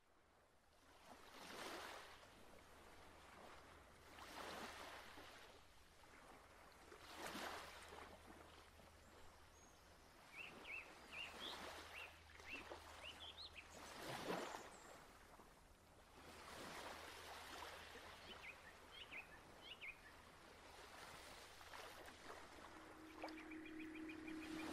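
Faint seaside ambience: surf washing in every two to three seconds, with small bird chirps now and then. A steady low tone sets in near the end.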